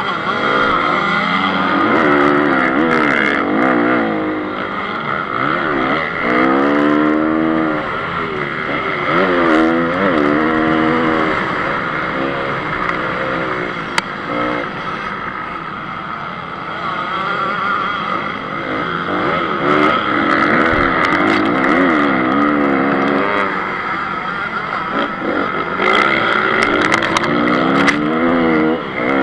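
Honda CRF 250 single-cylinder four-stroke motocross engine heard from onboard, revving up and down again and again as the rider accelerates out of corners and shifts. A few sharp clicks cut in over the engine.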